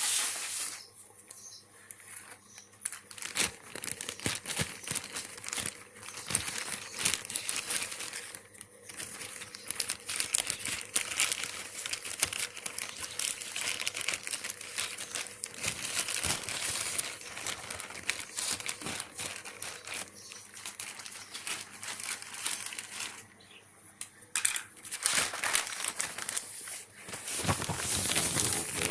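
Delivery packaging being crumpled and torn open by hand: continuous crinkling and rustling with sharp crackles, easing off twice for a moment.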